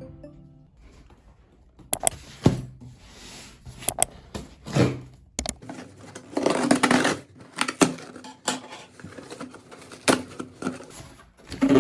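A parcel being unboxed by hand: cardboard and plastic packaging rustling, with many sharp clicks and knocks as it is handled.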